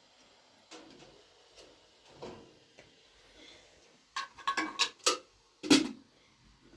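Kitchenware being handled: a few soft knocks, then a quick run of sharp clinks and clatters about four seconds in.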